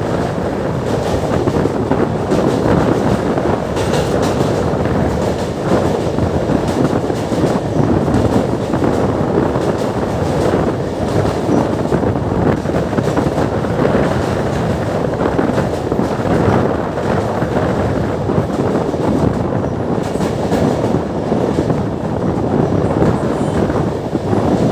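Passenger train running steadily at speed, heard from an open window of a coach. The wheels rumble on the rails, with frequent clicks running through the sound.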